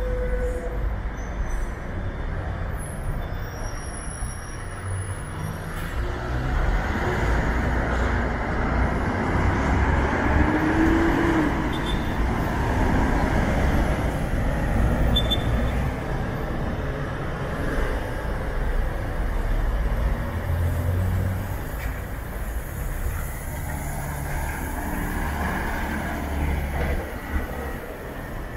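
Bi-articulated city buses running through a bus terminal: a continuous low diesel rumble with road noise, which grows louder for several seconds from about a quarter of the way in, and a brief rising squeal about a third of the way in.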